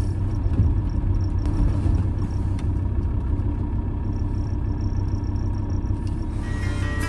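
Campervan driving on the road, a steady low engine and road rumble heard from inside the cab. Guitar music comes in near the end.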